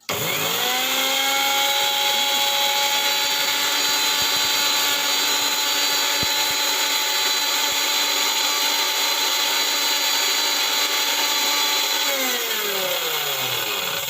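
Preethi Crown mixer grinder's motor switched on, whining up to full speed within about a second and running steadily at high speed. About twelve seconds in it is switched off and winds down, its whine falling in pitch.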